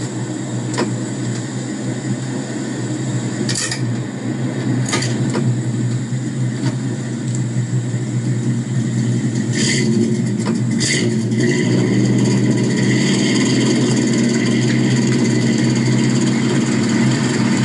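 A vintage car's engine running steadily, with several sharp clicks over the first half, growing louder about ten seconds in.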